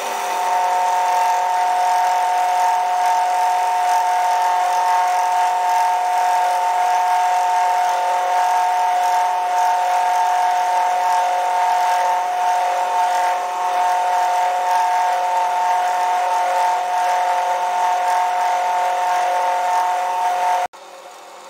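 Milling machine running, its end mill cutting a recess into an aluminium tool-holder block: a loud, steady machine whine with two high tones over cutting noise. It stops abruptly near the end.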